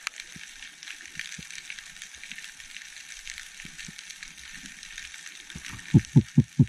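Underwater ambience: a steady crackling typical of snapping shrimp on a rocky reef, with a quick run of four low thumps near the end.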